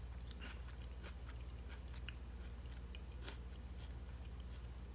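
Faint chewing of a mouthful of soft ground-beef cheeseburger pie: small scattered mouth clicks over a steady low hum.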